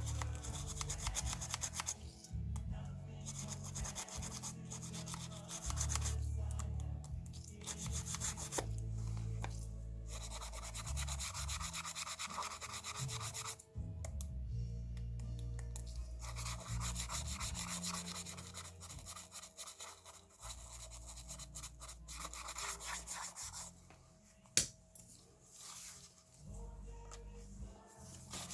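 Scratchy rubbing and handling noise over faint music with a stepping bass line, and one sharp click near the end.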